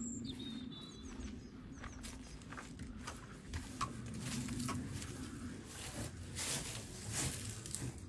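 A few short, high bird chirps in the first second, then footsteps and rustling close by, over a faint low hum.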